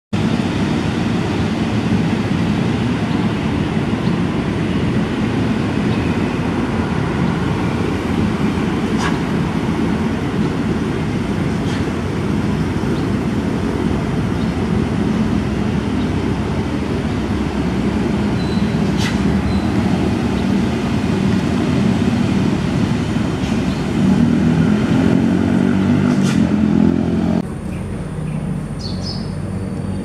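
Steady low rumble of road traffic, with a few brief high chirps; the rumble drops abruptly near the end.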